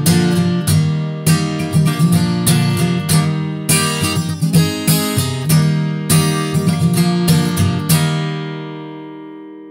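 Celtic background music, a tune of quick plucked notes, ending on a chord that rings out and fades away near the end.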